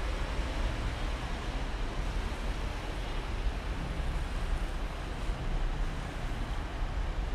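Steady road traffic noise from the busy street alongside: a continuous, even rumble of passing vehicles with no distinct horns or voices.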